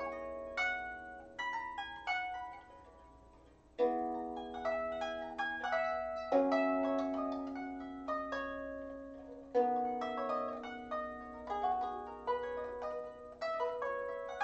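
Lever harp played by hand: a slow tune of plucked notes that ring on and fade, over low chords struck about four, six and a half and nine and a half seconds in. The notes die away to a short lull just before the first of those chords.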